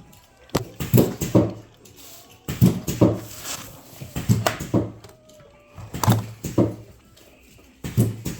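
Alarm clocks going off: short loud calls repeated in groups of two or three, a new group about every one and a half to two seconds.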